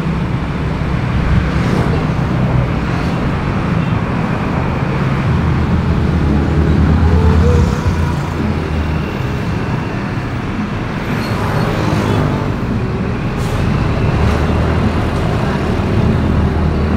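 Busy street traffic close up: motorcycle engines and a city bus's engine running, with tyre and road noise. The low engine rumble swells about six seconds in, then drops back a second and a half later.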